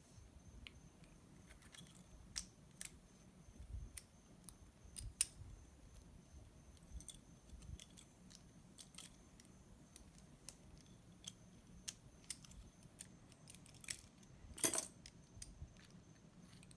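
Small metal lock parts and tools being handled during reassembly: scattered faint clicks and ticks, with one louder brief rustle about fifteen seconds in.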